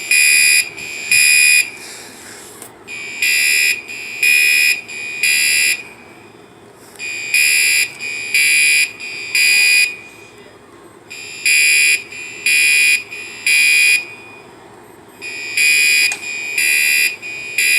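Fire alarm horns sounding the temporal-3 evacuation pattern: three loud blasts about a second apart, then a short pause, repeating. The horns are identified as System Sensor SpectrAlert Classic horn-strobes by their sound.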